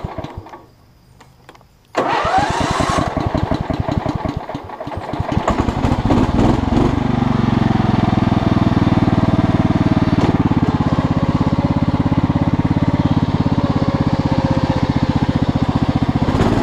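Riding lawn tractor's small engine being cranked by its starter at idle throttle: a brief crank at the start, then a longer crank about two seconds in, after which the engine catches and settles into a steady run.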